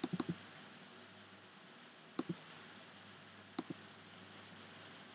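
Faint computer mouse clicks: a quick run of three, then a double click about two seconds in and another about three and a half seconds in, over low room hiss.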